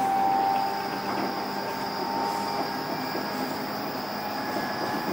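Running noise heard inside a JR East E531 series motor car (MoHa E530): steady rumble of the wheels on the rails, with thin high-pitched motor and inverter whines over it. One whine fades about a second in, and another faint one creeps upward near the end.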